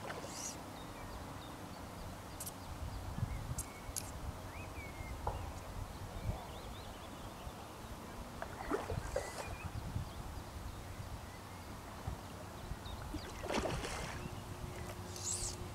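Outdoor riverbank ambience with a steady low rumble, faint bird chirps and scattered light clicks, and short splashy bursts about nine and thirteen-and-a-half seconds in from a hooked rainbow trout being played on a fly rod.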